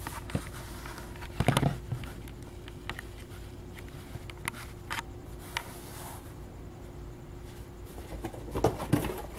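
Handling noise: scattered light taps and clicks of objects being moved by hand, with a louder rustling cluster about one and a half seconds in and more handling near the end, over a faint steady hum.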